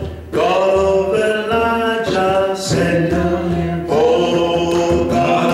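A man singing a slow worship chorus into a handheld microphone, in long held notes with a short break just after the start.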